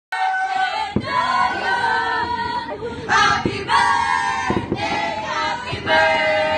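A group of voices shouting and singing together, loud and overlapping, with a couple of sharp bangs about a second in and again past the middle.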